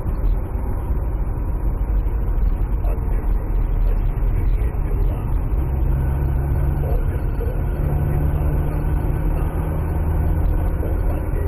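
Car engine and tyre noise heard from inside the cabin while driving, a steady low rumble. About six seconds in, a steady low engine hum comes up and steps slightly higher in pitch a couple of seconds later.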